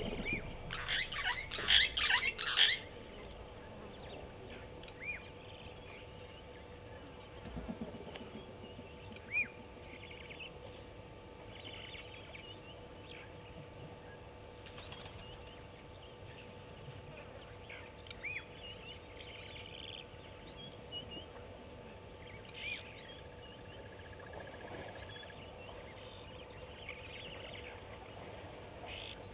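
Water and mud sloshing and splashing in a quick run of sharp bursts during the first few seconds as elephant bulls move in the shallow dam. After that only a faint steady hum, with scattered short bird chirps a few times.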